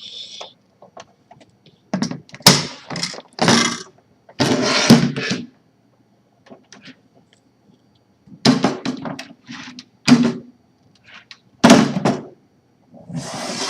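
A hard-shell typewriter carrying case being handled: a run of thunks, knocks and scraping clatter in several clusters, with quiet gaps between.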